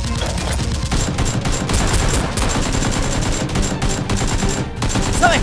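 Sustained rapid automatic gunfire sound effects: a dense, unbroken run of shots.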